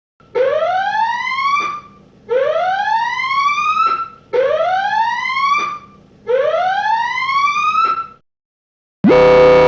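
Whoop-style alarm siren sounding four times, each whoop rising in pitch over about a second and a half and cutting off sharply, about two seconds apart. Near the end a loud ringing hit starts.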